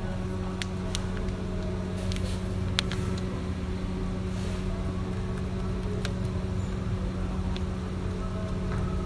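A steady low mechanical hum, with a few short faint clicks over it.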